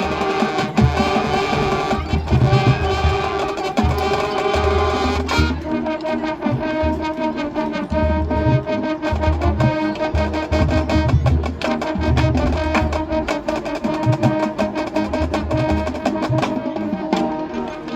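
Marching band playing: brass holding chords over a driving drum beat.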